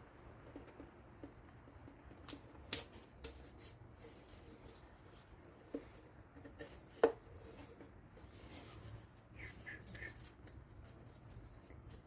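Light handling of wooden ukulele kit parts as the neck is fitted to the body: a few small knocks and clicks, the two loudest about a quarter of the way in and just past halfway, with faint rubbing and tapping between.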